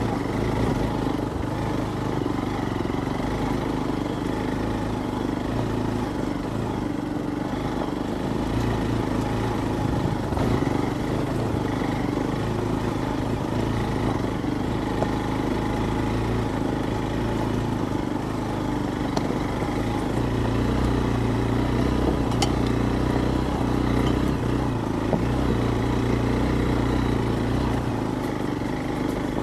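Hero Xpulse 200's single-cylinder four-stroke engine running steadily as the motorcycle is ridden off-road, the revs rising and falling a little, with a few faint clicks.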